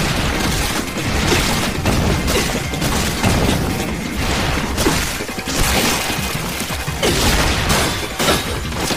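Anime battle sound effects: a rapid string of katana slashes, spattering and crashing impacts as the blade cuts through the monster's arms, over dramatic background music.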